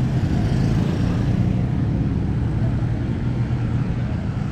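Motor engine running steadily: a constant low rumble with a hum.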